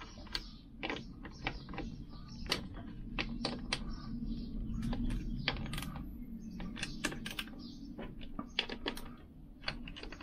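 Irregular sharp metal clicks and taps, a few a second, from a socket wrench working the nuts off a Lambretta gearbox end plate.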